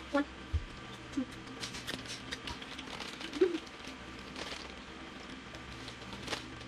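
Rustling of a paper fast-food wrapper with scattered small clicks and taps of eating at a table, and a few brief vocal sounds.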